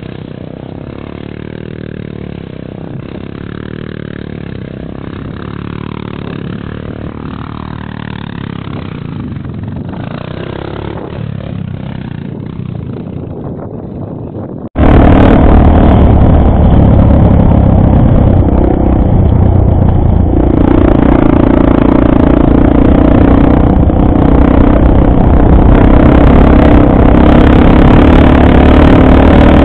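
Dirt bike engine revving up and down as the bike circles on sand, heard at a distance. About fifteen seconds in, the sound cuts suddenly to a much louder, close engine running steadily at speed.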